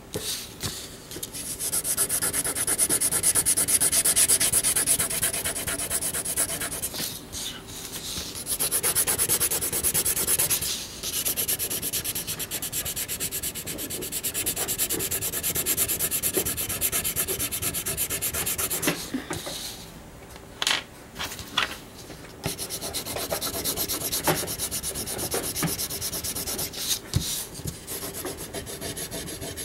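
Scratchy rubbing of a drawing tool over paper, close to the microphone, going in quick continuous strokes with brief pauses and a longer quieter stretch past the middle.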